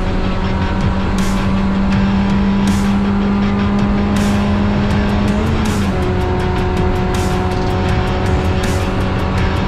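Mazda race car's engine running at steady high revs, heard from inside the cabin, its pitch holding level apart from a brief wobble about six seconds in. Background music with a beat runs underneath.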